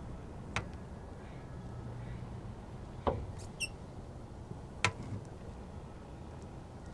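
Three sharp clicks, a couple of seconds apart, from handling tools and parts around the front suspension, with a brief high squeaky chirp between the second and third.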